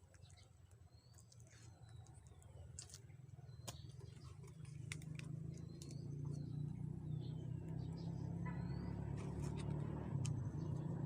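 A low motor hum that grows louder through the middle of the stretch and then holds steady, with a bird's short falling chirp repeated about once a second and a few faint clicks.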